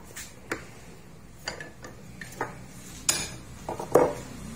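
Small metal parts and tools of a diesel fuel injector clinking and knocking as the injector is handled and tightened, with a series of separate sharp clinks, the loudest about four seconds in.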